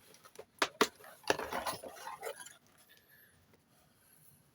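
Items in a motherboard's cardboard box being handled: two sharp taps about half a second in, then a second or so of rustling and scraping.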